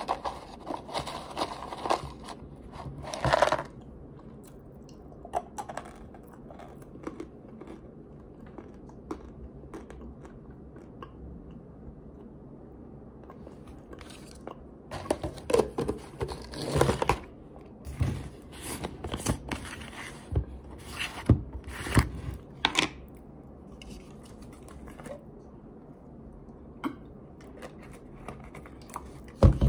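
Raw starch being bitten and chewed, with squeaky crunches. There is a burst of crunching at the start, a quiet stretch, then a run of sharp crunches about one and a half a second from the middle on, and a few more near the end.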